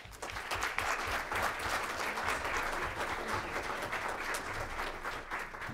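Audience applauding, a dense patter of many hands clapping that starts at once and fades out near the end.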